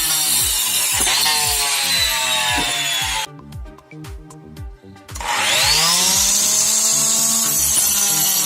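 Homemade circular saw driven by a 12V 775 DC motor whining at speed as its 4-inch blade cuts wood. It stops suddenly about three seconds in, then starts again about five seconds in with a rising whine as the motor spins up, and runs on steadily.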